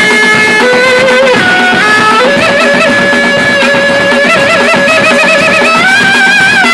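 Traditional-style music led by a reedy wind instrument playing an ornamented melody: held notes stepping up and down, with quick trills on some notes.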